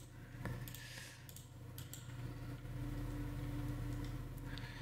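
A few faint computer mouse clicks, including a double left-click near the end, over a steady low hum.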